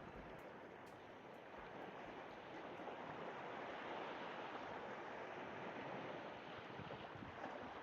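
Sea waves washing ashore, a soft even rush that swells gently and then eases.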